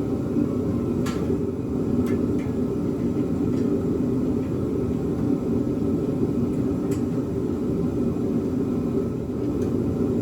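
Steady low rumbling background noise, with a few faint, light clicks scattered through it from a hand wrench snugging down the header bolts.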